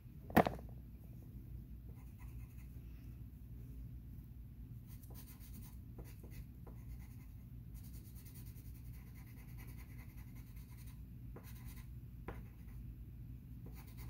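Pencil scratching on paper in short strokes as a drawing is worked on, over a steady low hum. A single sharp knock about half a second in.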